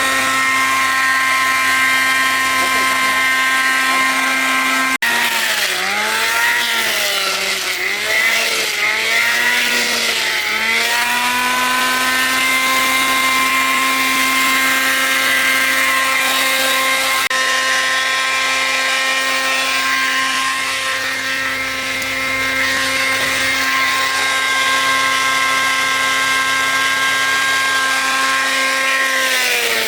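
A woodworking power tool's motor running at a steady pitch. From about five to eleven seconds in, its pitch sags and recovers several times as it bites into the wood under load, then steadies, and it sags once more near the end.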